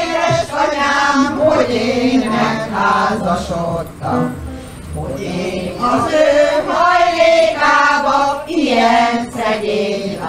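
A group of women singing a song together, with held notes that waver in vibrato, accompanied by an electronic keyboard.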